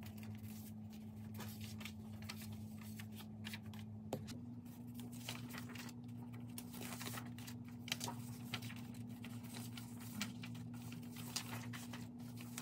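Sheets of printed paper being handled and shuffled, with many faint rustles and crinkles, over a low steady hum.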